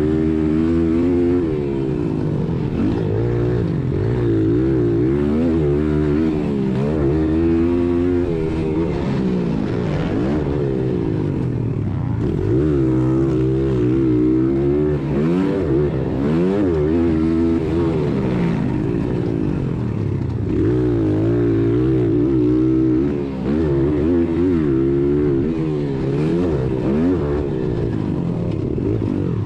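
1996 Honda XR100R's single-cylinder four-stroke engine at race throttle, heard from on the bike, its revs climbing and dropping over and over as the rider accelerates and backs off around the track.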